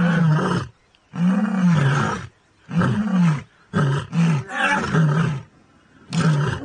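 Lioness roaring in a bout of about seven deep calls, each under about a second and several rising and falling in pitch, with short pauses between.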